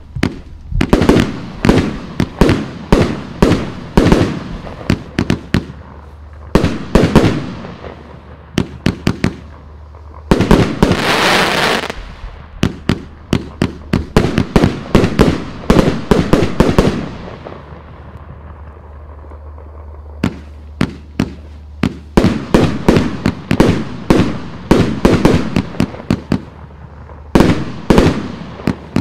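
Riakeo Shameless compound firework cake, 101 shots from 30 mm tubes, firing: rapid volleys of shots launching and bursting with sharp cracks. A dense hissing crackle comes about eleven seconds in, and there is a brief thinner lull around eighteen seconds before the volleys pick up again.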